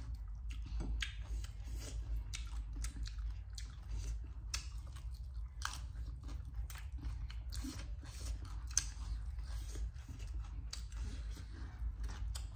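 Chewing and crunching of Korean fried chicken, a steady run of irregular crisp crunches and wet mouth sounds.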